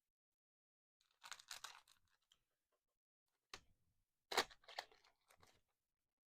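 Trading cards being handled: a few short, faint rustles and scrapes of card, the loudest a little over four seconds in.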